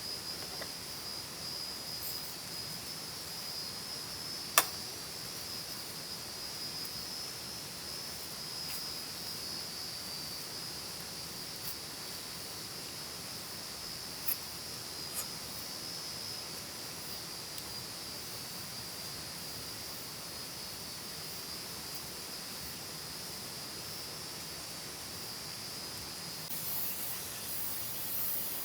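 Insects chirring steadily at one high pitch over a soft, even hiss, with one sharp click about four and a half seconds in.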